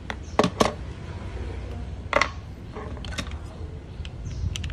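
Sharp plastic clicks and knocks as a handheld air-conditioner remote is handled and its plastic battery cover is slid back into place, over a low steady hum.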